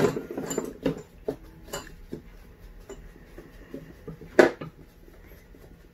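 Scattered light metallic clicks and scrapes of a flat-blade screwdriver turning an idle mixture screw into a Holley double-pumper carburetor, with a louder click about four and a half seconds in.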